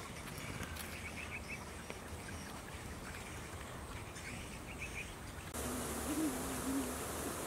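Faint short bird chirps, some in quick runs, over quiet outdoor ambience. About two-thirds of the way in the sound changes abruptly to a louder steady hiss with a low, wavering insect buzz.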